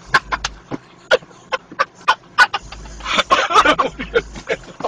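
People laughing hard, a run of short repeated laughs that gets louder about three seconds in.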